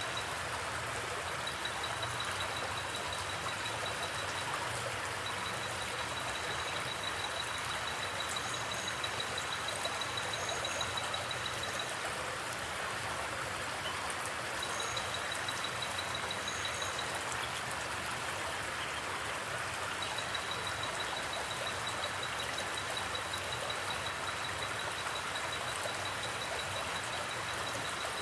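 River water rushing steadily, with a cricket trilling on one high pitch in fast pulses that stops and starts again a few times. A few faint double chirps sound above it.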